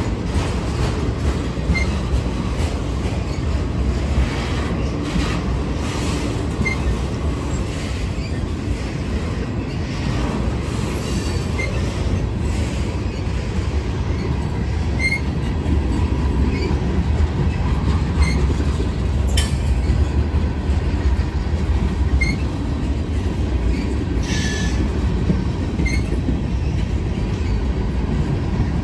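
Freight train cars (autoracks, covered hoppers and tank cars) rolling steadily past with a continuous low rumble. Faint short high chirps come every second or two over it.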